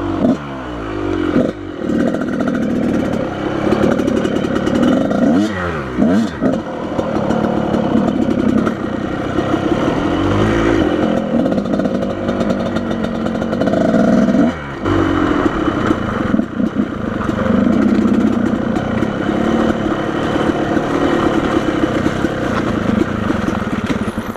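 Off-road motorcycle engine revving up and down repeatedly over rough terrain, its pitch climbing and falling with each twist of the throttle.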